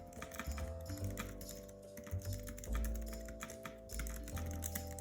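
Typing on a thin foldable Bluetooth keyboard (David Tech N Pad): a quick, irregular run of key clicks. Its two folding halves sit at slightly uneven heights, which makes the keys clack audibly as they are struck.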